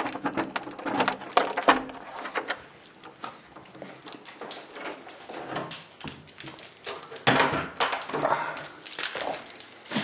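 Keys rattling and a lock clicking as a door is unlocked, followed by a door being opened and handled, with knocks and rustles.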